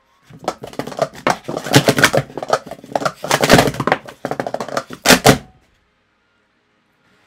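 Plastic speed-stacking cups clacking rapidly as they are stacked up and down in a timed run of about five seconds, ending with a sharp clack and then stopping suddenly. The uploader calls the set badly worn in.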